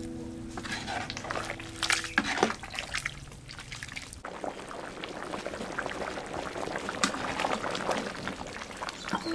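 Background music stops about two seconds in. After that, a pot of soup bubbles at a boil while a metal ladle stirs through it, with a few light clinks.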